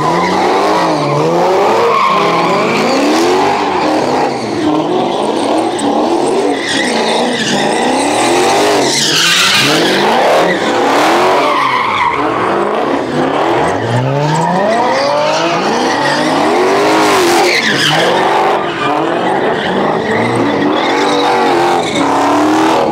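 Dodge muscle-car HEMI V8s revving hard, the engine pitch swinging up and down again and again over the hiss of spinning tyres, with louder tyre screeches about nine seconds in and again around seventeen seconds: cars drifting and doing donuts.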